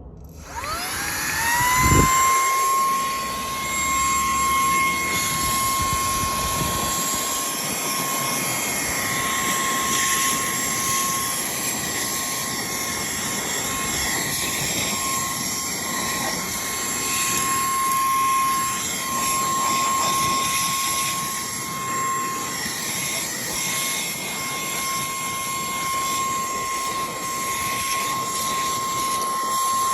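Cordless handheld car vacuum cleaner switched on: its motor spins up in a rising whine within about a second, then runs steadily with a high whine over rushing air. A single knock about two seconds in.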